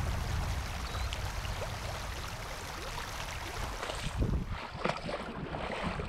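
Wind rumbling on the microphone over small waves lapping at a muddy lake shore, a steady noise with no voices.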